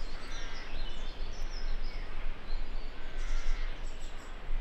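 Small birds chirping and singing over a steady low outdoor rumble.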